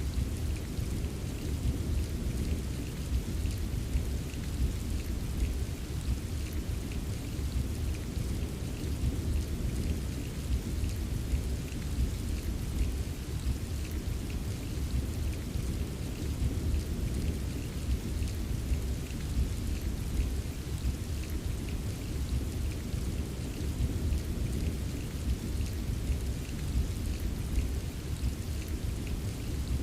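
Steady rain with many small drops tapping, over a continuous low rumble of distant rolling thunder.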